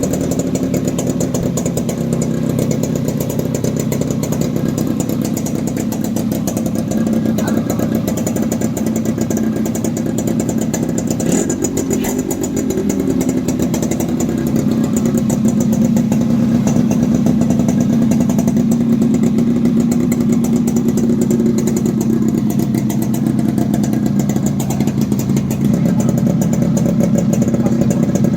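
Yamaha RX 135's freshly rebuilt two-stroke single-cylinder engine running steadily without being revved. It gets a little louder about halfway through.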